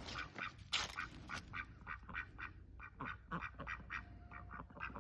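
Ducks quacking in a quick, steady string of short calls, about five a second.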